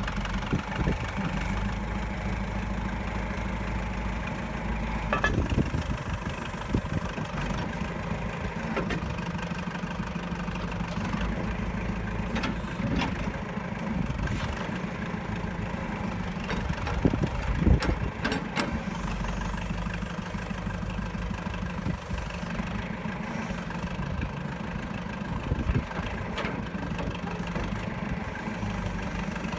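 John Deere 500-C backhoe's engine running steadily, with a few short louder knocks about five, twelve and eighteen seconds in.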